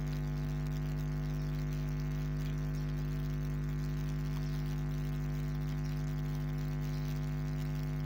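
Steady low electrical mains hum with a buzzy edge, holding at one level without change.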